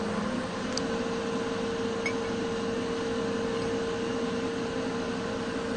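Steady mechanical hum, like a fan or air conditioner, with a constant mid-pitched tone running through it.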